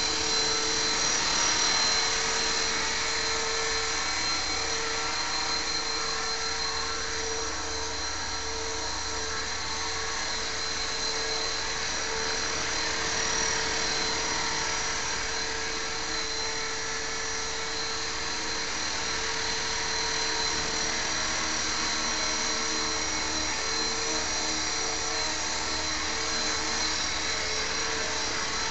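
Radio-controlled model helicopter hovering low, its motor and rotor giving a steady high whine over the buzz of the spinning blades.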